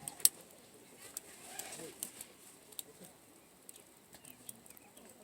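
Wood fire crackling, with irregular sharp pops and snaps, one much louder pop about a quarter second in.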